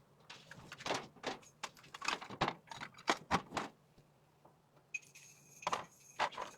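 Small merchandise and its plastic packaging being handled and packed by hand: a quick run of rustles and clacks, then a thin high squeak about five seconds in that lasts a second or so, among a few more handling noises.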